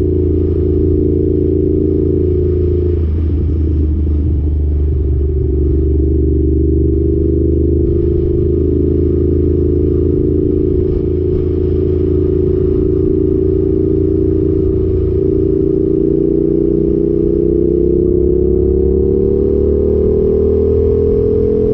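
Yamaha YZF R7's parallel-twin engine running through an Arrow exhaust while riding, holding a steady note, with a brief break about three seconds in; over the last few seconds the pitch climbs gradually as it accelerates.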